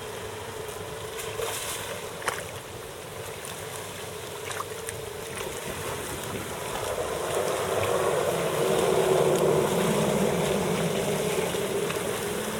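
Creek water rushing, a steady hiss-like noise that grows louder about seven seconds in, with a few faint clicks.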